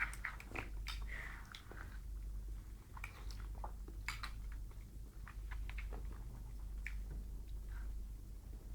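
Someone eating ice cream close to the phone's microphone: scattered short clicks and smacking mouth sounds of chewing and licking, over a steady low hum.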